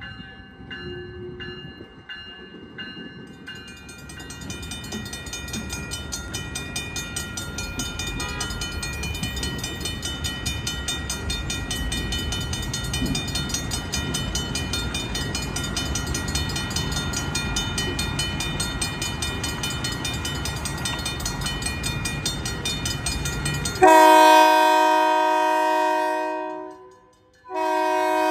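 California Northern SE24B diesel locomotive approaching, its bell ringing about twice a second over the engine, louder as it nears. About 24 s in, its horn sounds a long blast, breaks off for a moment, then sounds again.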